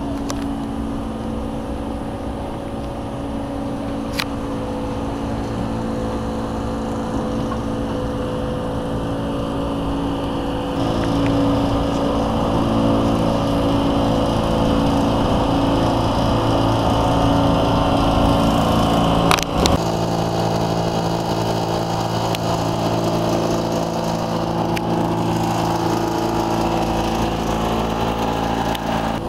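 A steady mechanical drone made of several held low hums, which gets a little louder about a third of the way through. A sharp click cuts in about two-thirds of the way through.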